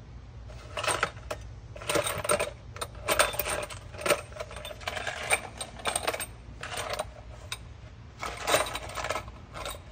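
Steel bolts and flange nuts clinking and rattling in a small plastic parts box as they are sorted through by hand, in short irregular clusters of clicks.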